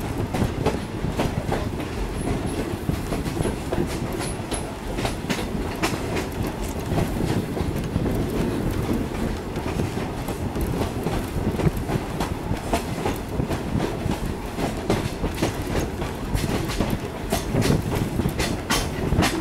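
Train rolling along, heard from an open car: a steady low rumble of wheels on the rails, with scattered clicks and clatter throughout.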